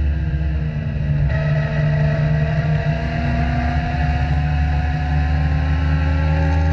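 Legend race car's four-cylinder Yamaha motorcycle engine heard from inside the cockpit at racing speed. Its pitch falls briefly off the throttle, then about a second in it comes back on and climbs steadily as the car accelerates.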